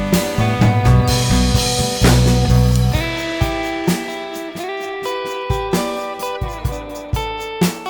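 Background music: guitar with a drum kit keeping a steady beat.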